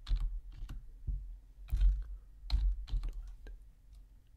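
Computer keyboard keys tapped one at a time in an irregular, scattered run of about seven or eight keystrokes while numbers are typed in.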